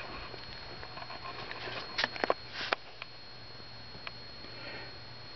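A few light knocks and clicks, bunched about two to three seconds in, over a steady faint hum: handling noise as a handheld camera is moved.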